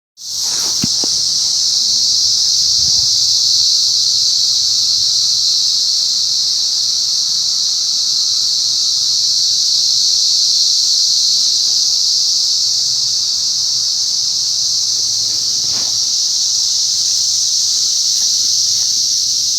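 Chorus of cicadas buzzing, a loud, steady, high-pitched drone that does not let up.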